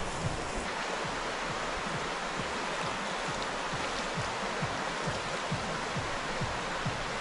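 River water rushing steadily, with frequent soft low thumps.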